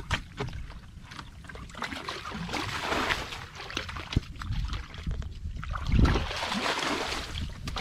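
Muddy water being bailed with a plastic bucket: scooped up and thrown out, sloshing and splashing in bursts, loudest about six seconds in.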